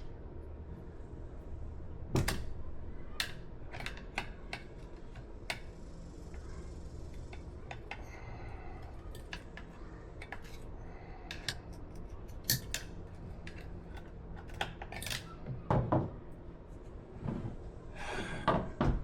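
Metal tire irons clicking, clinking and knocking against a dirt bike wheel rim as a tight rear tire is levered on, in irregular strokes with a few louder knocks.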